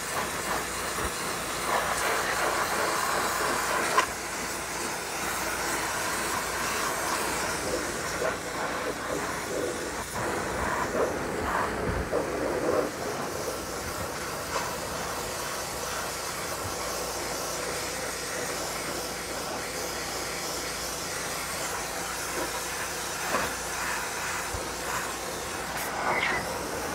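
Wet sandblasting: a pressure washer's dustless blasting nozzle sending a steady hissing spray of water and sand against a rusty steel truck frame, stripping the rust.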